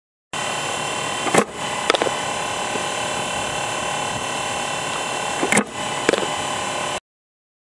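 A fastpitch softball struck by a bat in bunting practice: two sharp knocks about four seconds apart, each followed about half a second later by a second knock, over a steady outdoor hiss. The sound starts and stops abruptly.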